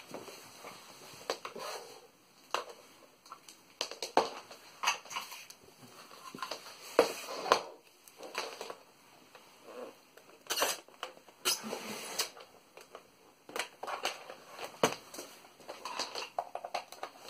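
Irregular clicks, knocks and rustling from hands handling a power cable and plug and setting up a 1990s NCR laptop, opening its lid.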